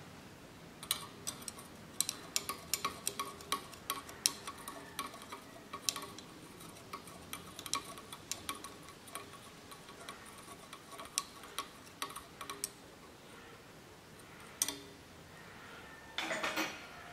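Glass stirring rod clinking against the inside of a glass test tube in a quick, irregular run of light ticks, stirring copper(II) sulfate powder into ethanol. The clinking stops a few seconds before the end, with one last tick after it.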